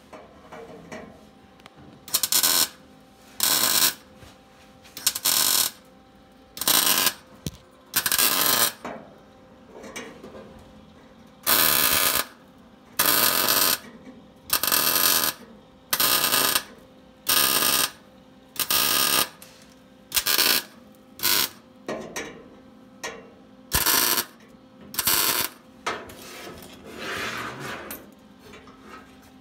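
Wire-feed welder laying short stitch welds on the steel roll pan: a run of crackling, hissing arc bursts, each about half a second to a second long, stopping and starting again every second or two.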